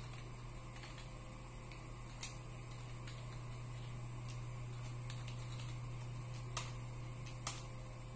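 Keystrokes on a computer keyboard as a path is typed in. A few scattered soft clicks, one sharper click a couple of seconds in and two more near the end, all over a steady low hum.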